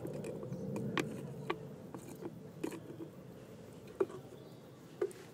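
A lump of charcoal crackling with scattered sharp pops, about half a dozen, as it heats to a glow in the focused sunlight of a solar lens, over a low steady hum.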